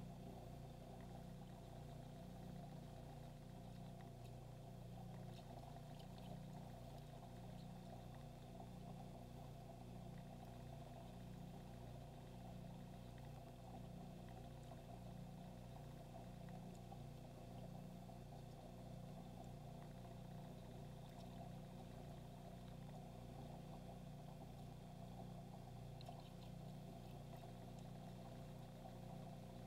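Aquarium pump humming faintly and steadily, its low hum wavering in a regular pattern, with a few faint ticks.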